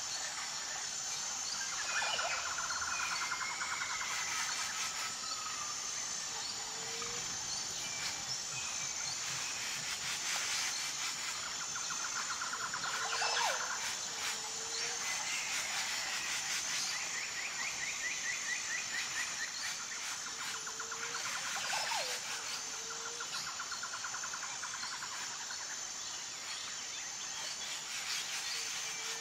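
Birdsong over a steady high-pitched whine: short trills and whistled calls come and go, and a pair of short low notes recurs every six to eight seconds.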